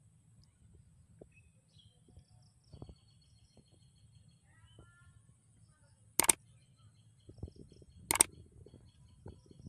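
Faint low rumble with a few faint high chirps, broken by two sharp clicks about six and eight seconds in.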